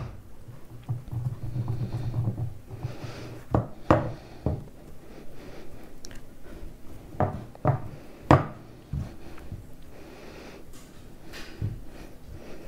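Hands pressing crumbly dough into a quiche tin: soft pressing and rubbing, with irregular light knocks of hands and tin.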